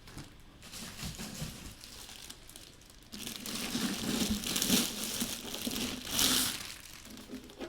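Plastic crinkling and rustling as model-kit parts and packaging are handled, quiet at first and louder from about three seconds in.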